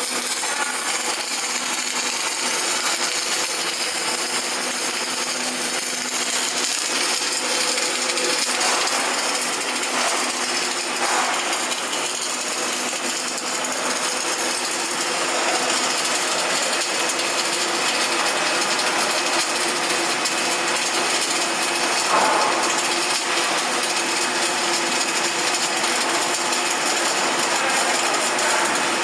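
Electric arc welding: a steady, dense crackle and sizzle from the arc, with a few brief louder pops.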